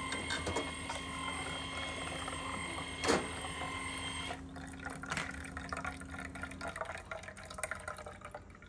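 Burabi automatic baby-formula maker dispensing formula into a bottle: a steady machine whine over the sound of liquid pouring into the bottle. The whine stops about four and a half seconds in and a lower hum near seven seconds, leaving scattered drips. A single knock sounds about three seconds in.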